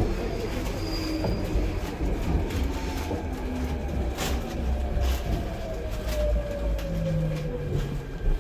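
Seoul subway Line 2 train heard from inside the carriage: a steady low rumble of wheels on track, with a motor whine that falls slowly in pitch as the train slows, and a few faint clicks.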